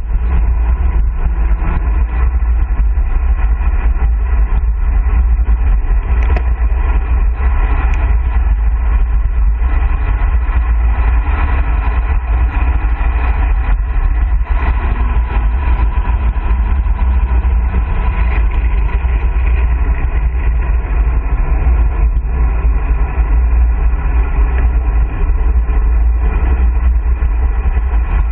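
Loud, steady wind noise buffeting the microphone of a handlebar-mounted camera on a road bike descending at about 45 to 58 km/h, heaviest in a deep low rumble.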